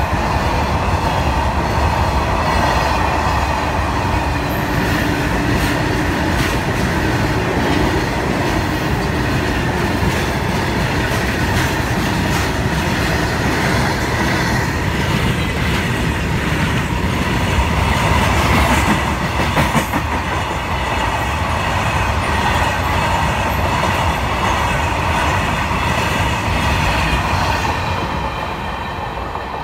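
Freight train's open hopper wagons rolling past close by: a steady loud rumble of steel wheels, clattering over the rail joints. It fades a little near the end.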